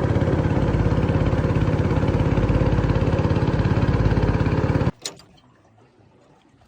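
An engine running steadily with a fast, even pulse, then stopping abruptly about five seconds in, followed by a faint click.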